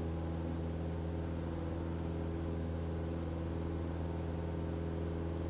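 Cessna 172 Skyhawk's piston engine droning steadily in the cabin at constant power, with a thin steady high whine over it.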